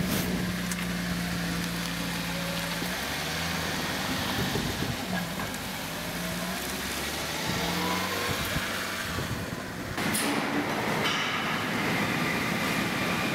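A Japanese kei mini truck's engine running with a steady low hum. About ten seconds in the sound changes abruptly to a broader, brighter steady noise.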